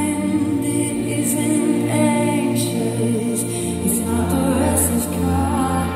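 Live worship song from a band and singers, recorded from within the concert crowd: held chords under sung lines.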